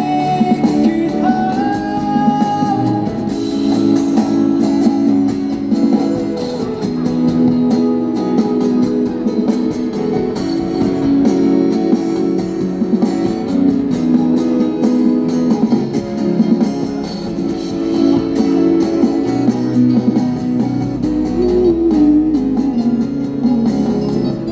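Live band playing an instrumental stretch of a Cantopop ballad, led by guitar.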